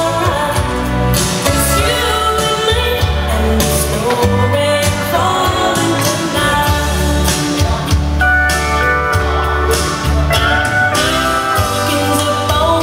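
Music: a sung song over a steady, regular bass beat.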